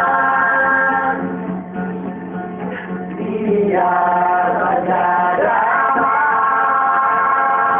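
Singing of a Christian song over sustained instrumental accompaniment, with long held notes; it drops in level for a couple of seconds about a second in, where a single voice glides between notes.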